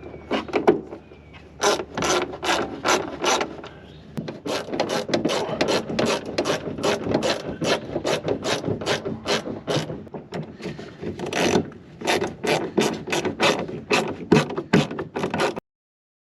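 Hand socket ratchet clicking in quick repeated strokes as fasteners are run in, cutting off suddenly near the end.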